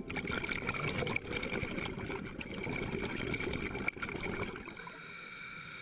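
Scuba regulator exhaust bubbles heard underwater: a rough, gurgling rumble of exhaled air. It is busiest for about four seconds and then fades, over a faint steady high tone.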